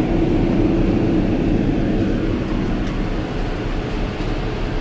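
Cabin noise inside a Boeing 777-300ER climbing after takeoff: a steady rush of airflow with the drone of its engines. A low hum in the drone eases about a second in.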